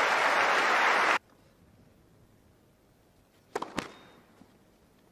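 Tennis crowd applauding, cut off abruptly about a second in. After a quiet stretch come two sharp knocks close together near the end.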